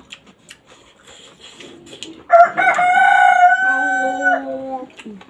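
Soft clicks and smacks of people eating by hand, then about two seconds in a rooster crows once, loud and drawn out for about two and a half seconds, its last note dropping lower.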